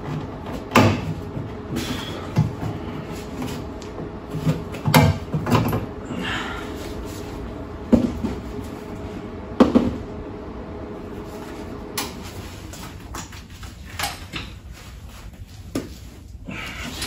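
Scattered sharp knocks and clatter of hand work on a car's steel sill, about a dozen, over a steady low hum that stops about twelve seconds in.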